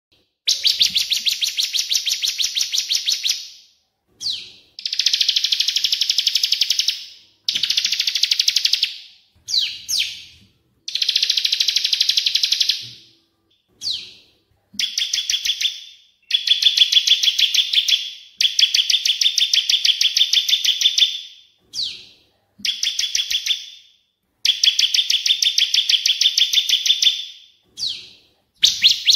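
Songbird song from a masteran recording of cililin and ciblek: rapid pulsed trills of about two to three seconds each, repeated after short pauses, with a few brief single calls between them.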